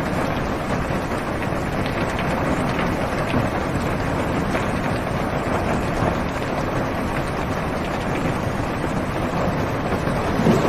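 Steady rain on a car's roof and windows, heard from inside the car: a dense, even, low-weighted patter with a slight swell near the end.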